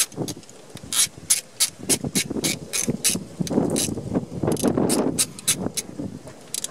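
Socket ratchet clicking in quick runs, about four clicks a second, as a nut is run down with a deep socket to fasten the new EGR valve.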